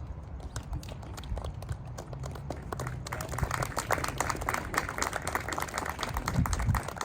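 Audience applauding: many hands clapping irregularly, growing fuller about three seconds in and stopping near the end.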